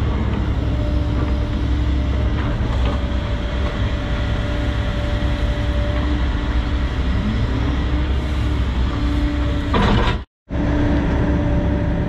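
Volvo excavator's diesel engine and hydraulics running steadily under load, heard from inside the cab, as the bucket digs and swings a load of dirt. The sound cuts out completely for a moment about ten seconds in.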